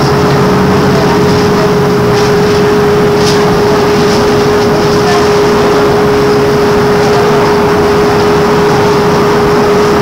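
Interior running noise of a MAN articulated trolleybus in motion: road and running rumble with a steady, even-pitched hum over it. A lower-pitched sound fades out about two seconds in.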